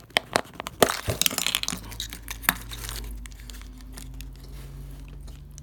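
Sealed plastic toy packets crinkling and clicking as they are handled, with a quick run of small sharp clicks and clinks over the first couple of seconds. After that the handling stops and a steady low hum is left.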